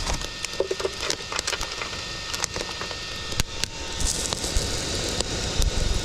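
Small wood-and-coal forge fire under forced air from a battery-powered blower: a steady rush of air with many sharp crackles and pops from the burning fuel.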